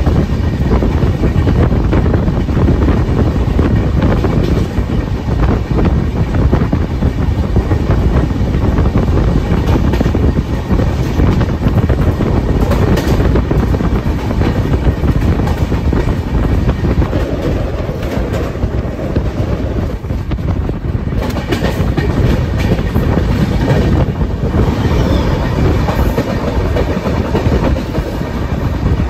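Indian Railways express passenger train running along the track: a steady rumble of wheels on rails, with clicks from the wheels passing over rail joints.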